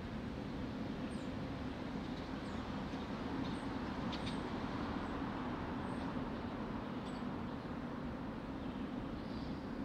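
Steady low rumble of outdoor city ambience, with a few faint, short high chirps scattered through.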